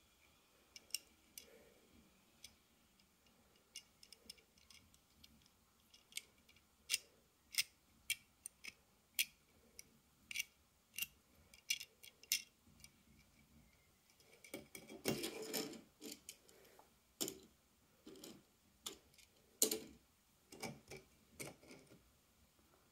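Irregular small clicks and taps from fingers handling a 1:64 scale diecast metal Mini Cooper model, with a longer scraping, rubbing patch about two-thirds of the way through. Near the end the model is set down on a wooden tabletop.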